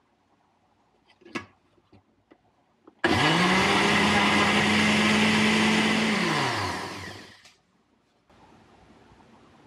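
Rival countertop blender motor switched on about three seconds in, quickly whirring up to speed and running steadily as it blends a liquid mix, then switched off and winding down to a stop about four seconds later. Before it, a few light clicks as the lid is fitted on the jar.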